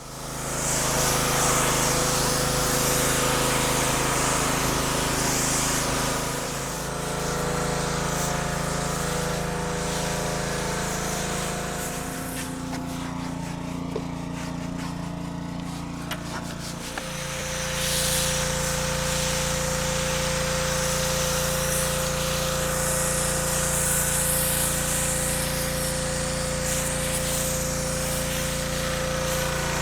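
An engine running steadily, its sound shifting between about 6 and 17 seconds in before settling back to the same steady note.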